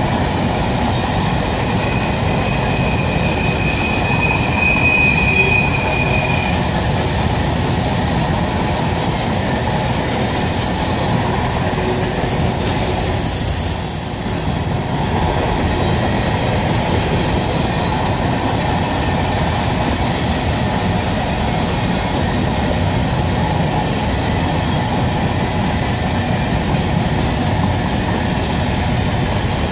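Freight train's covered hopper cars rolling steadily past, a constant loud rumble of wheels on rail. A thin high squeal sounds for a few seconds about two seconds in.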